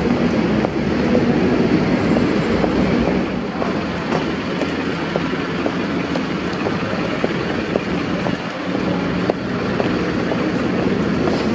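Busy city street noise heard while walking: a steady rumble with light footsteps clicking on stone paving.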